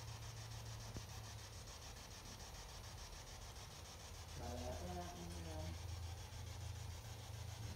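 Quiet room tone: a steady low hum with hiss. A faint pitched sound, like a distant murmur, comes about halfway through, and the hum grows a little louder from then on.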